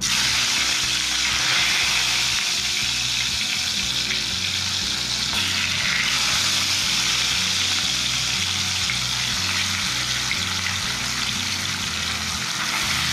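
Pieces of katla fish frying in hot oil in a kadai: a steady, loud sizzle.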